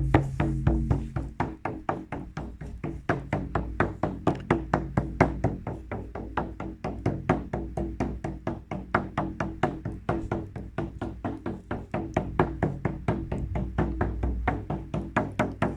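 Music with a fast, even percussive beat of about four to five strikes a second over a steady low drone.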